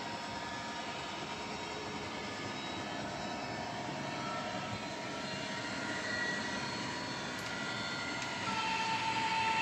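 00 gauge model train pulling out of a station: a steady engine drone from the locomotive's DCC sound decoder, mixed with wheel and running noise from the track. It gets a little louder near the end.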